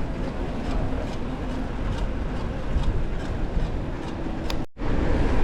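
Wind rumbling on the microphone of a moving bicycle ride, with faint light ticks through it; the sound drops out for an instant near the end.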